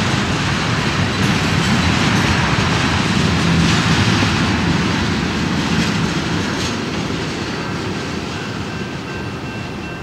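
Freight cars of a mixed freight train, covered hoppers and tank cars, rolling past with their wheels running on the rails. The sound fades over the last few seconds as the end of the train goes by.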